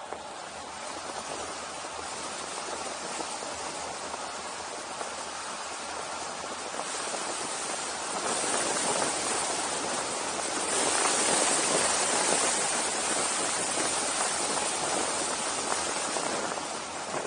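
Wind rushing over a moving camera's microphone, growing louder about eight seconds in and loudest a few seconds later.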